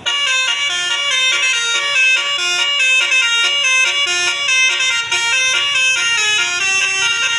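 Telolet basuri bus horn playing a melody: several horn tones sounding together, stepping quickly from note to note about every quarter second, starting abruptly.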